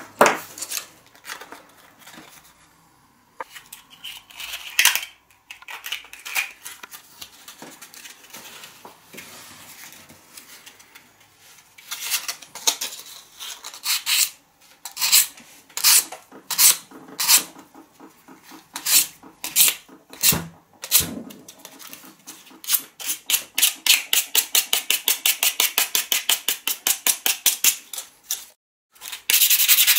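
Sandpaper rubbed hard back and forth over a lacquered wooden fishing lure, testing how well its thick lacquer coat holds up. After some lighter handling clicks, the scratchy strokes begin about twelve seconds in, at roughly two a second, then quicken to about four a second near the end.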